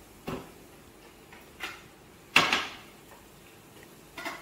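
Containers being moved about inside a refrigerator: four separate knocks and clatters, the loudest a little over halfway through with a short ringing tail.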